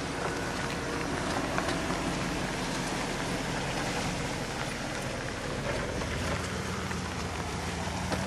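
1993 Jeep Grand Cherokee's 5.2 V8 running steadily as the SUV drives past and away over loose sand and gravel, with a constant rushing tyre noise and small stone ticks over it.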